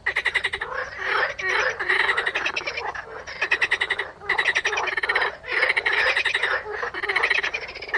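Chorus of frogs croaking: overlapping runs of fast, evenly pulsed calls, each run about a second long with short breaks between.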